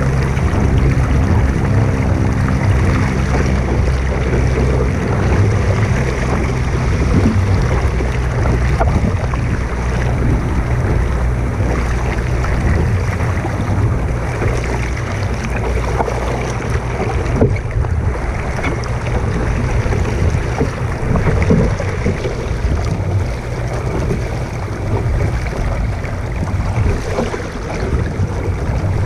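Wind buffeting the microphone, with water rushing and splashing along the hull of a small sailboat under way.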